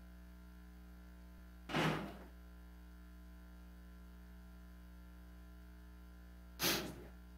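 Quiet room tone with a steady low electrical hum on the meeting-room microphone feed, broken twice by a short thud, about two seconds in and again near the end.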